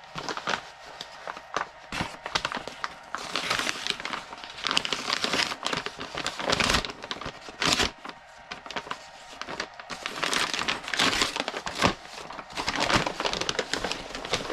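A parcel being unwrapped by hand: packaging crinkling and rustling in irregular handfuls, with a few sharper rips and knocks.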